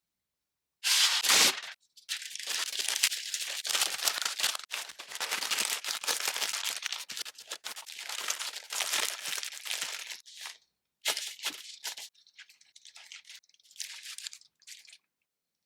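Parchment cooking paper tearing and then crinkling and rustling as it is folded around a sandwich, with a loud tear about a second in, steady crinkling for several seconds, and shorter rustles near the end.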